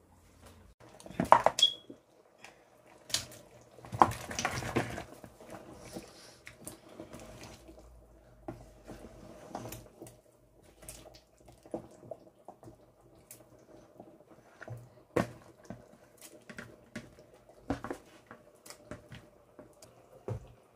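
Pot of leafy black soup bubbling on the boil, with scattered clicks and knocks from a wooden spoon stirring it against the pot; the loudest knocks come about a second in and again around four seconds.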